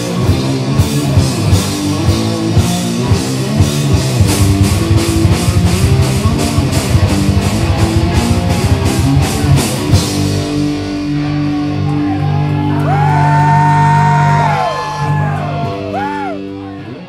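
Heavy metal band playing live: distorted electric guitar, bass guitar and drum kit. The drums stop about ten seconds in and the guitars and bass ring out held closing chords, with a high note sliding up, holding and sliding back down near the end, before the sound cuts off.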